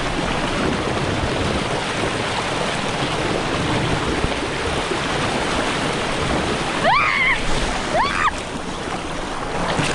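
Steady rush of flowing river water and waterfall. About seven and eight seconds in come two short rising cries.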